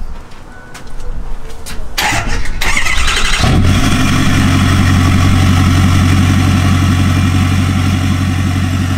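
Ford Super Duty pickup started with the starter: about a second and a half of cranking, then the engine catches about three and a half seconds in and settles into a steady idle through its short axle-dump exhaust, not too loud.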